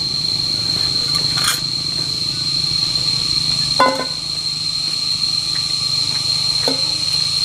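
Steady high-pitched insect drone over a low steady hum, with a few light clinks of cookware while a pan heats on the fire.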